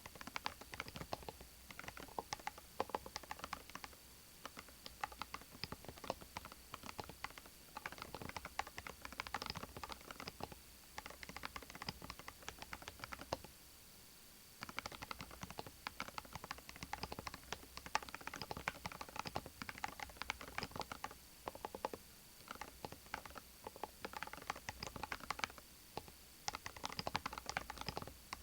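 Typing on a Cerakey Maris 60 HE, a 60% Hall-effect keyboard with ceramic keycaps: fast, continuous keystroke clicks in runs, broken by a few short pauses.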